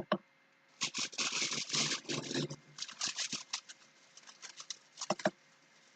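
Irregular rustling and crackling of foliage as something creeps through it, denser in the first couple of seconds and then thinning to scattered crackles.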